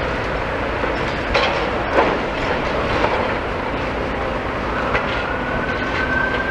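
Demolition excavators breaking up rebar-filled concrete: a steady clanking, grinding noise with a few sharp knocks. In the last second and a half a siren's tone comes in, rising slowly.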